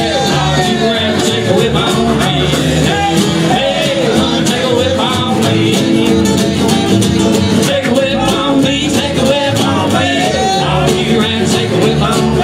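Live acoustic string band playing an up-tempo song with singing: upright bass, acoustic guitars and a five-string banjo, over a steady scratched rhythm from a washboard.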